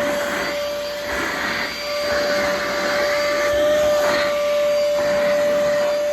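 Siumxr handheld cordless vacuum running with a steady high motor whine, its rush of intake air swelling and fading several times as the nozzle is worked over the floor and along the edges.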